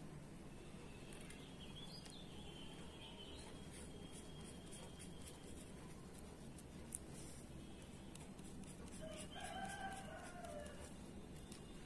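A rooster crows once, faintly, a little over two-thirds of the way through, after a small bird chirps early on. Quick light scratches of a felt-tip marker on paper run through the second half.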